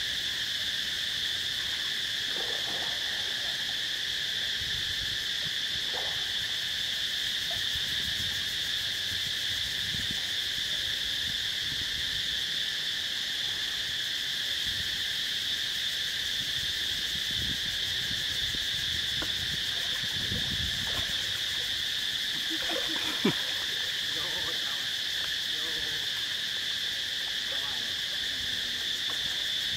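Steady, high-pitched drone of an insect chorus. It is joined by faint low splashing and a single sharp click about two-thirds of the way through.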